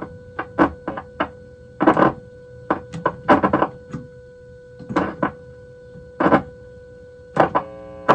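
A steady test tone, about 500 Hz, coming from the Zenith 6S27 radio's speaker while it is fed a signal for alignment. The tone is broken into by about a dozen short, loud bursts of noise.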